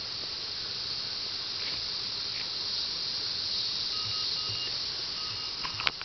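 Tropical rainforest insect chorus: a steady high-pitched hiss of calling insects. A faint on-and-off tone comes in about four seconds in, and a sharp click sounds near the end.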